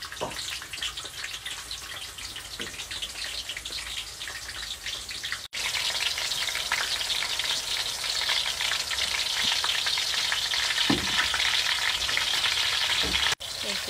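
Slices of green banana deep-frying in a wok of hot oil: a dense, crackling sizzle that turns much louder about halfway through.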